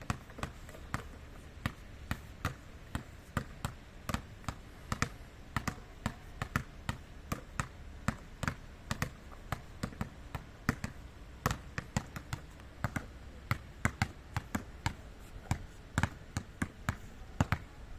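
Series of sharp taps or knocks, irregular, about two to four a second, some in quick pairs.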